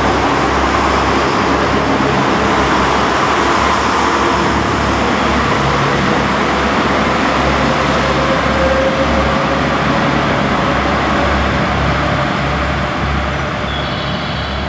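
KTR8000-series diesel multiple unit pulling out of the station: its diesel engines run under load and its wheels rumble on the rails. The noise eases slightly near the end as the train moves off.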